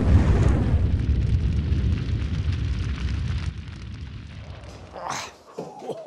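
Propane-filled balloons exploding into a fireball: a loud, low, rushing rumble of burning gas that fades away over about three and a half seconds.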